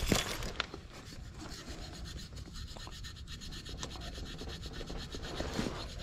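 Handling noise: hands rubbing and tugging at the compressor wiring inside a heat pump's outdoor unit, with a knock right at the start and a sharp click just after.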